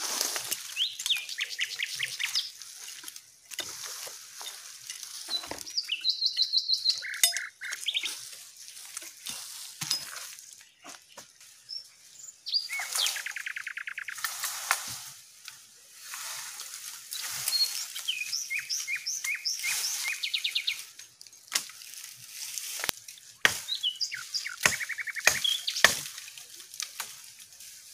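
Birds calling and singing: repeated rapid chirping trills and short high whistles, with a few sharp knocks near the end.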